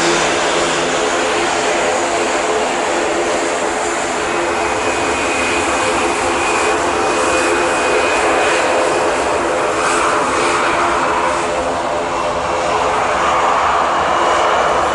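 Boeing 737-800's CFM56-7B jet engines running steadily as the airliner rolls past: a loud, even rush with a steady hum and, for a few seconds midway, a high whine on top.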